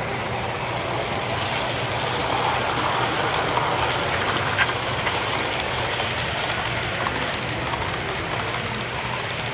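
HO scale model freight train rolling past on its track: a steady whir of metal wheels on the rails, with one sharper click about four and a half seconds in.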